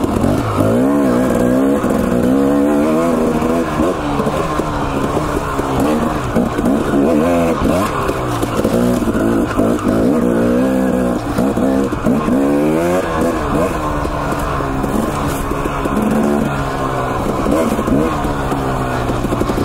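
Husqvarna TE250 two-stroke dirt bike engine under way on the trail, revving up and falling back again and again as the throttle is worked.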